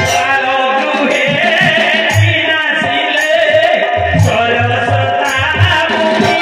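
Live folk-theatre music: a voice singing over melodic accompaniment. The hand-drum beat drops out, with a single stroke about two seconds in, and comes back in steadily about four seconds in.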